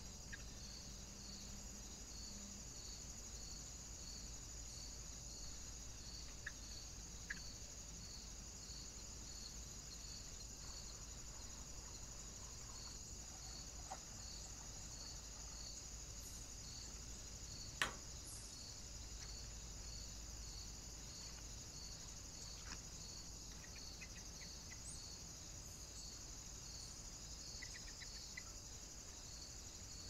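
Faint insect chorus: a steady high trill with a regular chirp pulsing about twice a second. A few short clicks break in, the sharpest a little past halfway.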